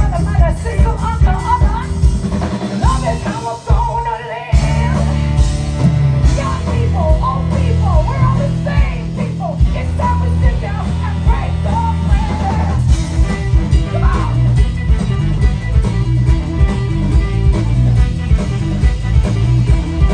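A live band playing with drums, bass, electric guitar and a singer. The band drops out briefly about four seconds in, then comes back in full.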